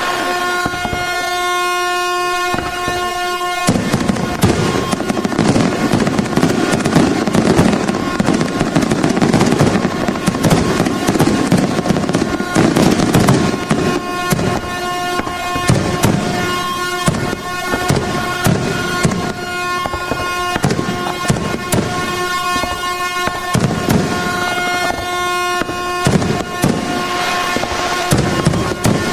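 Fireworks going off in a dense barrage of bangs and crackles, starting abruptly about four seconds in, over a steady air-horn tone held on one pitch.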